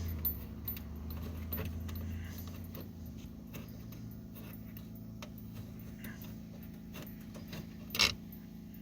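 Faint scattered clicks and light rattling of hand work on the truck's parts, with one sharper clack about eight seconds in.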